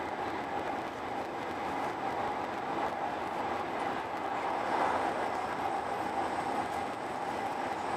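Eurostar Italia high-speed train running along the line, heard from inside the passenger carriage as a steady, even rush of rolling noise.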